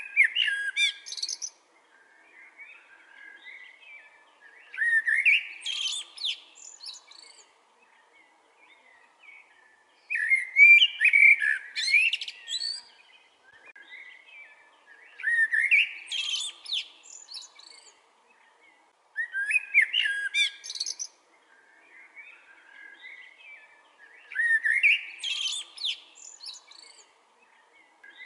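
Male Eurasian blackbird (Turdus merula) singing: a fluted, warbling phrase about every four to five seconds, each ending in a high, scratchy twitter, with short pauses between phrases.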